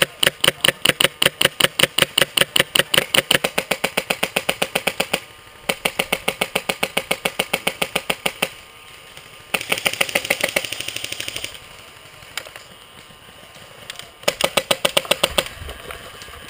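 Airsoft rifle firing on full auto in long rapid bursts of evenly spaced cracks: one that is already going at the start and runs for about five seconds, then bursts of about three seconds, about two seconds and about one second, with short pauses between them.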